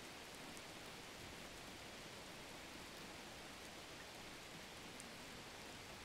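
A faint, steady hiss with no clear events, broken only by a couple of tiny high ticks, one near the start and one near the end.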